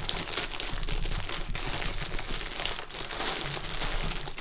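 Clear plastic mushroom grow bag crinkling as gloved hands squeeze and break up the mycelium-colonized substrate inside it: a steady run of small crackles.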